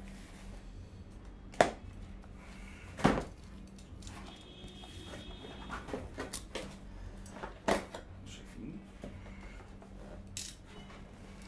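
Cardboard packaging being handled and opened: scattered knocks, taps and scrapes of cardboard, the loudest about three seconds in. A faint steady hum sits underneath.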